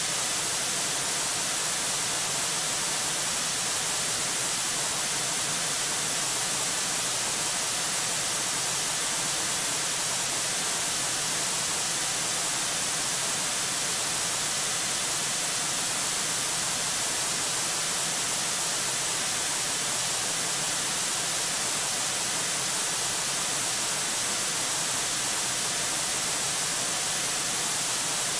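Steady electronic hiss of static from a nest camera's microphone, even and strongest in the high pitches, with no other sound standing out.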